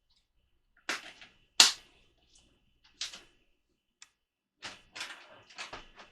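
A series of sharp knocks and clacks, hard objects being handled and set down, about seven in all, the loudest about a second and a half in and several close together near the end.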